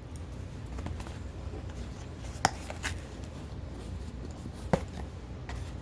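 Light handling noises of a package being handled: scattered small taps and clicks, two sharper knocks about two and a half and nearly five seconds in, over a low steady hum.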